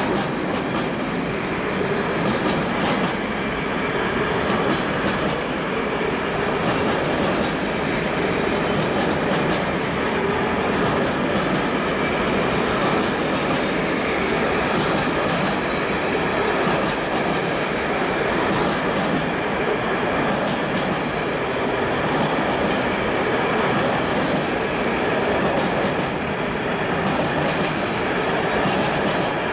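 Container freight wagons rolling past on the adjacent track: steady wheel-on-rail rumble with irregular clicking as the wheels cross rail joints.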